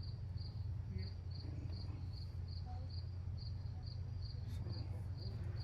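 A cricket chirping steadily, about three short high chirps a second, over a steady low hum.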